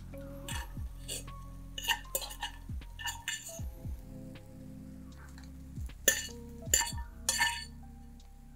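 Metal spoon scraping and clinking against the inside of a stainless steel pan in a series of short strokes, the loudest few about six to seven and a half seconds in. Background music with a low beat runs underneath.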